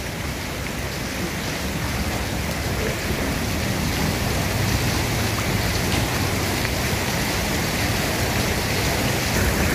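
Steady, even hiss of water in a flooded residential street, swelling slightly over the first two seconds and then holding level.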